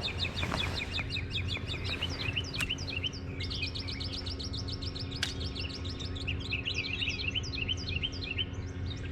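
Several small birds chirping in fast, overlapping runs of short repeated notes, over a steady low hum.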